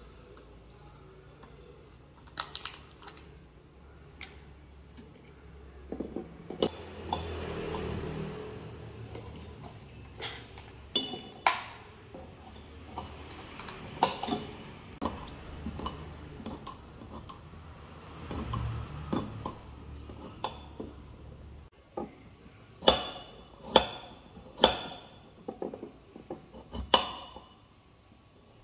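A knife chopping green beans and carrot on a small ceramic plate, the blade clicking sharply against the plate, with small metal pots and dishes clinking as they are handled. The loudest clicks come in a run near the end.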